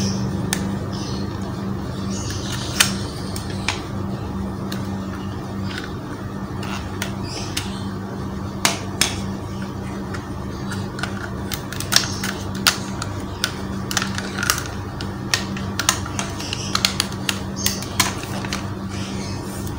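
Sharp plastic clicks and knocks of a small folding portable speaker being handled, its hinged speaker halves folded and unfolded. The clicks are scattered and come more often in the second half, over a steady low hum.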